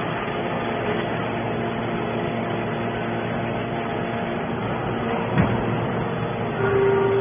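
Hydraulic scrap metal baler running: a steady machine hum with a single clank about five seconds in, and the hum growing louder near the end.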